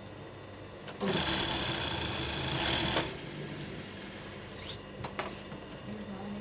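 Sewing machine running in one burst of about two seconds, then stopping, followed by a couple of faint clicks.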